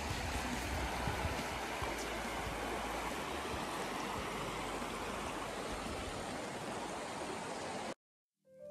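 Steady rush of a fast-flowing river, with a low rumble underneath for the first few seconds. It cuts off abruptly near the end, and music begins.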